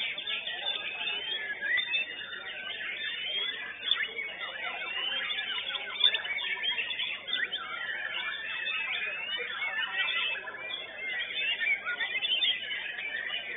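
White-rumped shama (murai batu) singing in a contest cage: a dense, unbroken run of quick whistles and chirps that rise and fall, with other caged contest birds singing over it at the same time.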